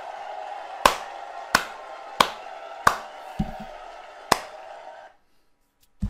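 Five loud, sharp hand smacks, slow and evenly spaced about two-thirds of a second apart, over a steady rushing haze from the video being played, which cuts off about five seconds in.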